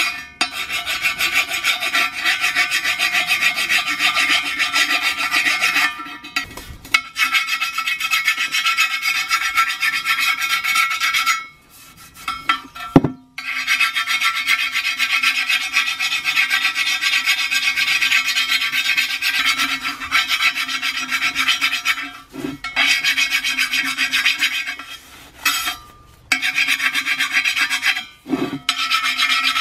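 A metal tool rasping against a bare steel wheel rim in long runs of scraping strokes, broken by short pauses, with a single sharp click about thirteen seconds in.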